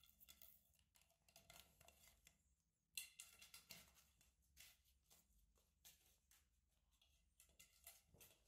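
Faint, scattered clicks and scrapes of a plastic drinking straw and a British shorthair kitten's paws on ceramic floor tiles, with a sharper click about three seconds in.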